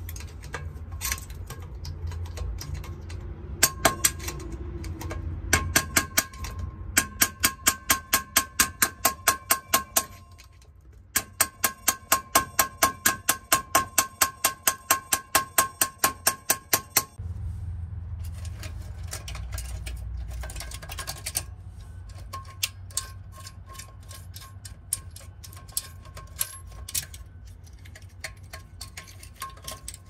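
Ratchet wrench clicking in long, regular runs of about three or four clicks a second, with a short break between two spells, while the old well-pump pressure switch is worked loose. Later it gives way to fainter, scattered clicks and taps. A steady low hum runs underneath.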